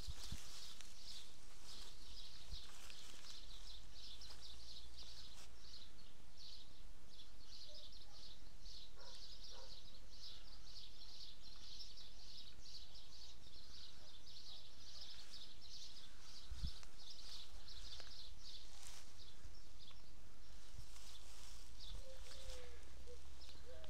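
Outdoor chorus of high, rapid chirping, several chirps a second, over a low steady hum, with a few lower warbling calls near the end.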